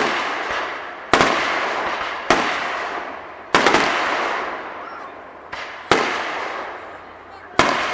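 Aerial firework shells bursting overhead one after another: about six sharp bangs every second or two, each trailing off in a fading echo.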